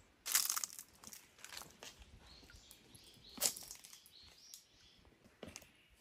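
Irregular crunching steps and clicks on leaf-strewn stone ground, a cluster about half a second in and a sharp one near the middle, with faint bird chirps behind.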